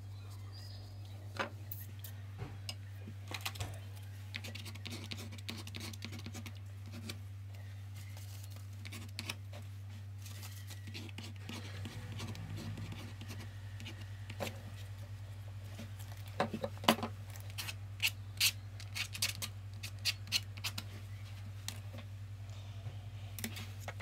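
Scratchy strokes, rubs and light taps of a paintbrush and hand working on watercolour paper, sparse at first and busier in the second half, over a steady low hum.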